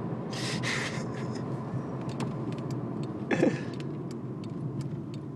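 A woman burps once, a short, loud belch falling in pitch about three seconds in, over the steady hum of a car interior. Two brief breathy sounds come in the first second, and a light, regular ticking runs through the second half.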